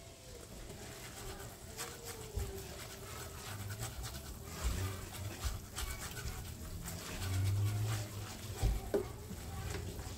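A dog panting, with irregular clicks and scrapes of a whisk stirring in a pot.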